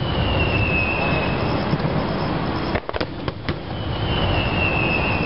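Aerial fireworks going off in rapid succession: a dense, continuous crackle and rumble of shell bursts, with a few sharp bangs about three seconds in. Two high whistles that fall slightly in pitch sound over it, one early and one near the end.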